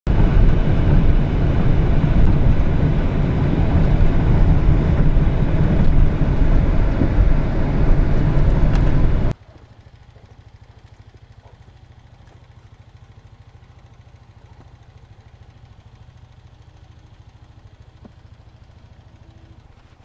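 Loud, steady road and engine rumble from inside a moving car. It cuts off abruptly about nine seconds in, leaving only a faint low hum.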